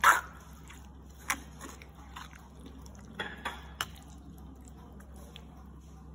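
Silicone spatula stirring thick yoghurt-and-vegetable raita in a clay bowl: a few short, wet clicks, the loudest right at the start, another a little over a second in, and a small cluster around three to four seconds in.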